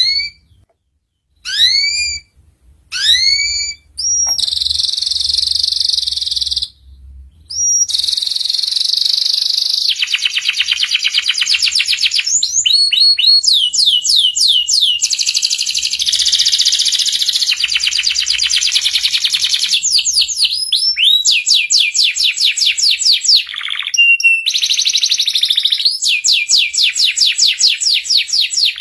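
Domestic canary singing: three separate rising whistled notes, then long fast trills and rolls that run on with only brief breaks.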